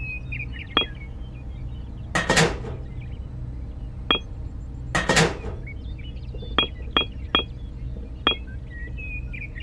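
Light metallic clinks and taps, six sharp strikes in all, with two louder, longer rasping bursts about two and five seconds in, over a low steady hum.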